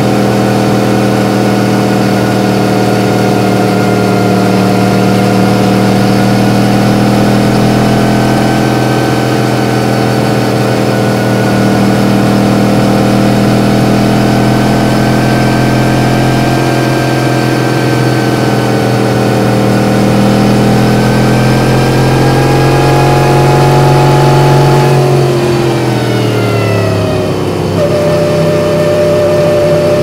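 Yamaha MT-10's crossplane inline-four engine running at steady cruising revs, creeping up slightly, then falling in pitch as the revs drop about five seconds from the end, before holding steady again.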